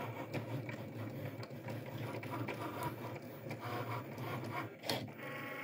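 Cricut cutting machine running, its carriage motors whirring steadily as the tool head travels across the mat, with a brief knock about five seconds in.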